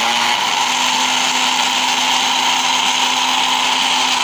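Electric countertop blender motor running steadily at full speed with a steady hum, whirring oil and milk together into an eggless mayonnaise emulsion.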